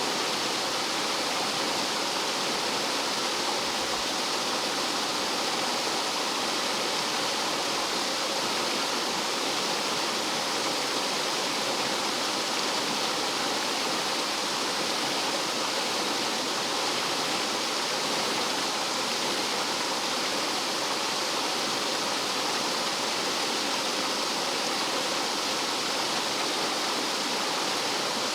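Rough mountain stream tumbling and falling like a small waterfall: a steady, even rush of water.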